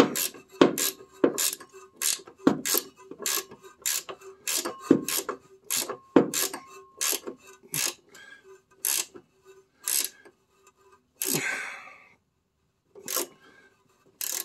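Flex-head ratcheting wrench clicking as it is swung back and forth, tightening the upper mounting nut of a Triumph Spitfire's rear shock absorber. The clicks come about two or three a second at first, then slow to a few spaced clicks in the second half as the nut snugs down.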